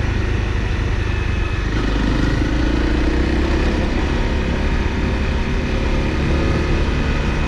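Honda CRF250L's single-cylinder four-stroke engine running steadily as the motorcycle rides along.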